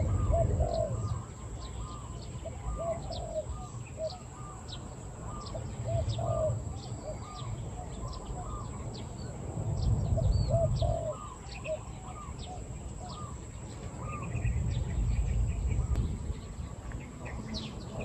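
Spotted doves cooing: a repeated series of short, low, rounded notes. Thin high chirps from small birds are mixed in, along with patches of low rumble.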